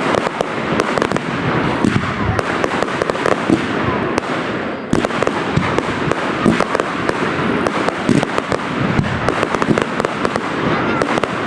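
Aerial fireworks going off in a dense, continuous barrage of rapid crackles and bangs.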